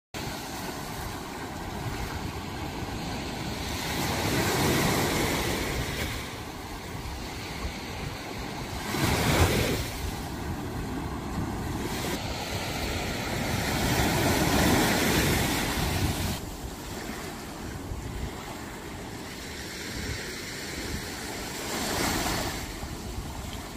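Small sea waves breaking and washing up the sandy shore, a steady rush that swells louder and falls back every few seconds.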